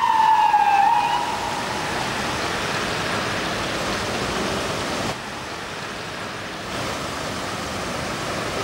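An emergency-vehicle siren's falling wail cuts off about a second in. After it comes a steady rushing splash of water as emergency 4x4s drive through flood water, briefly quieter a little past the middle.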